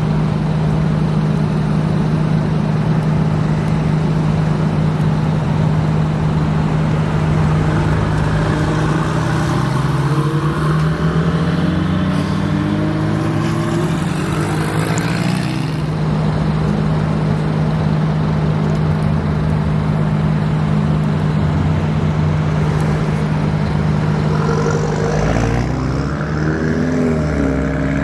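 Sports cars accelerating hard from a standstill, engines revving up in rising sweeps through the gears, about a third of the way in and again near the end, over a steady low engine drone.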